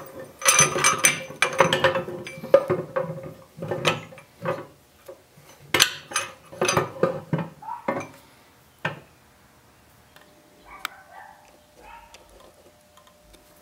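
Steel gears on an SM465 four-speed transmission's main shaft clanking and clinking against each other and the transmission case as the shaft is worked down into place. A busy run of metal knocks and rings lasts about nine seconds, then the clatter stops.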